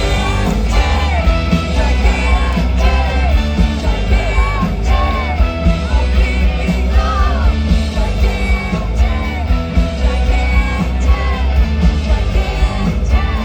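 Live rock band with a horn section playing a song, with a sung vocal line over heavy bass and drums.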